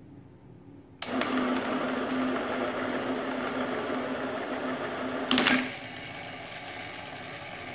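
Electric motor of a small burr-free roller pipe cutter switching on about a second in, turning the steel pipe against the cutting wheel with a steady hum and a scraping cutting sound. About five seconds in there is a brief loud crack, after which the hum drops away and a quieter running sound continues.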